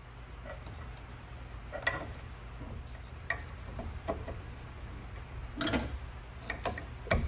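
Flat-blade screwdriver prying at the steel end cap of a Land Rover Series III drive flange held in a vise: scattered small metal clicks and scrapes, with a sharper knock a little before the end.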